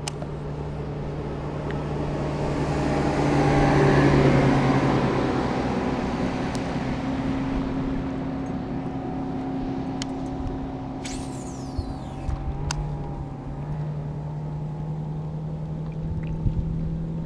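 Motorboat engine running steadily at a low drone, with a broad swell of noise that is loudest about four seconds in as the boat passes nearest, and a few small clicks.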